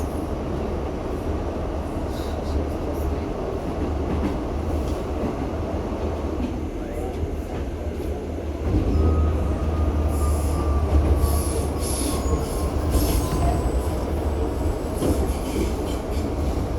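New York City subway train running on the rails: a steady low rumble that gets louder about nine seconds in, followed by high-pitched wheel squeals through the second half.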